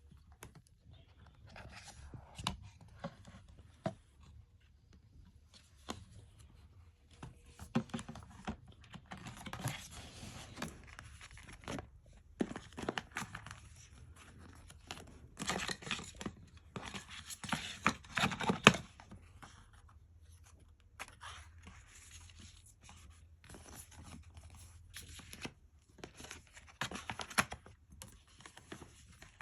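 Keyboard packaging being opened by hand: irregular tearing and rustling with small knocks and scrapes of handling, loudest a little past the middle.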